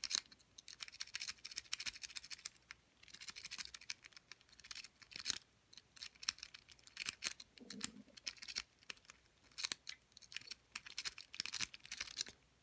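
A worm rake scrubbed in and out of a Master Lock No. 1 padlock's keyway under bottom-of-keyway tension. The steel rake makes rapid scratching and clicking as it drags over the pin tumblers, in repeated strokes with short pauses between them.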